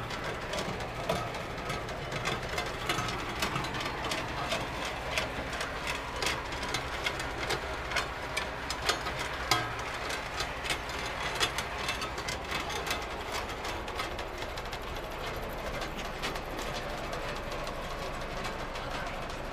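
Ore-mill machinery running: a steady low mechanical rumble with crushed rock rattling and knocking through it in many irregular sharp clicks.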